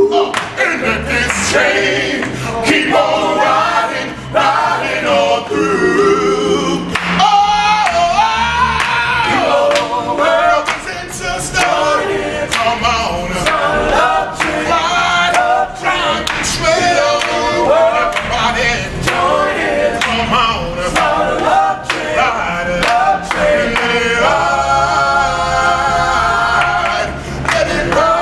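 A male doo-wop group singing a cappella in close harmony, with hand claps keeping the beat.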